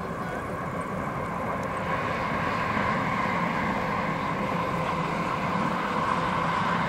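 Two Siemens Vectron class 193 electric locomotives running light across a viaduct: a steady rumble with a high, even whine, growing louder over the first few seconds and then holding steady as they pass.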